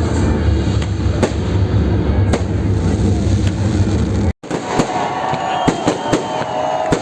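Fireworks bursting with sharp bangs. For the first four seconds they sound over loud, bass-heavy music. After a short break the music is gone, and the bangs come thicker, with long whistling tones among them.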